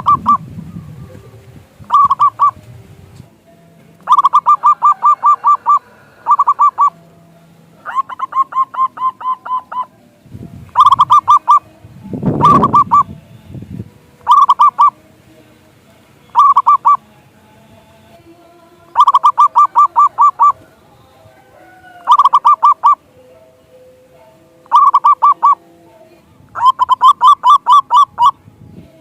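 Zebra dove (perkutut) calling over and over: short bursts of rapid staccato coos, one burst every couple of seconds. A brief low noise breaks in about halfway through.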